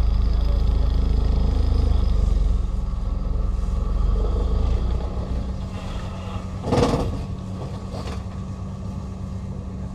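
Xcentric Ripper XR30 hydraulic ripper on a Komatsu excavator vibrating against rock: a dense, rapidly pulsing low rumble over the excavator's steady engine hum, easing off about five seconds in. About seven seconds in there is a loud sharp crack, then a lighter knock, while the engine keeps humming.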